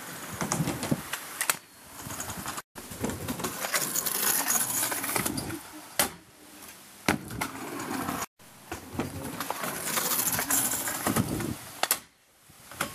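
Stunt scooter wheels rolling on asphalt and ramps, with sharp metal-and-wood clacks of the scooter hitting the ramp and landing. The loudest clack comes about six seconds in.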